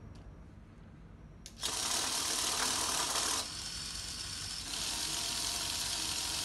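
Small electric motors of a home-built raffle-draw robot's counter-rotating ball-shuffling wheels switch on about a second and a half in and run with a steady whirring hiss. The level drops for about a second in the middle, then rises again.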